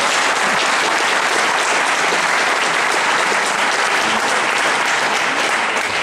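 Audience applauding, a steady spell of many hands clapping.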